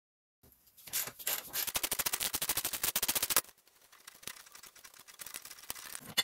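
Socket ratchet clicking rapidly, about fifteen clicks a second for around two seconds, while undoing a bolt on the engine-bay cross member, then fainter scattered clicks near the end.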